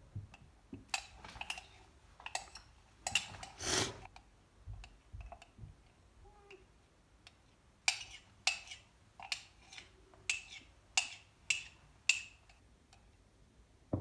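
Metal spoon scraping and clinking against the inside of a ceramic mug while scooping out thick slime. Irregular scrapes at first, then from about eight seconds in a run of eight sharp clinks roughly half a second apart.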